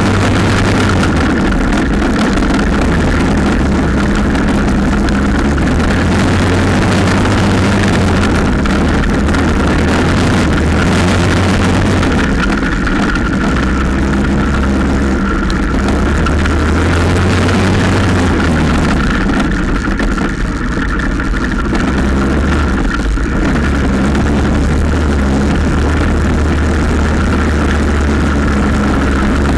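Quad bike engine running while being ridden at a steady pace, its note holding steady with a short dip about twenty seconds in.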